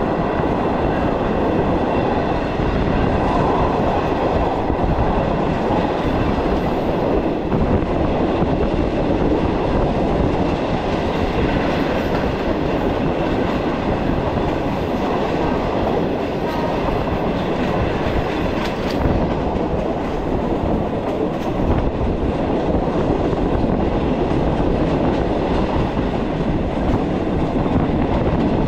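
Passenger train running along the track, heard from aboard: a steady rumble of wheels on rails.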